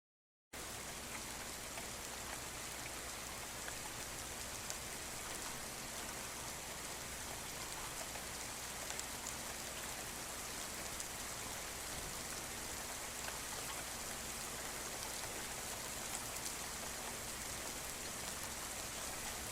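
Steady rainfall, an even hiss with scattered small ticks of individual drops, cutting in abruptly about half a second in.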